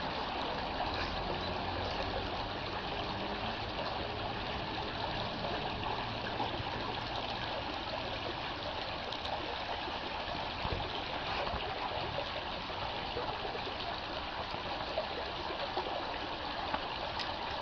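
Creek water flowing steadily, an even rushing trickle.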